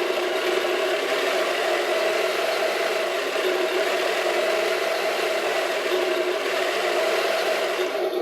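Heng Long RC tank's electronic sound unit playing its engine sound effect through a small built-in speaker: a steady, rattly engine drone.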